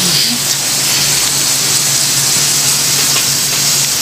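Pork belly slices sizzling on a tabletop samgyupsal grill pan, a steady hiss, with a low steady hum underneath.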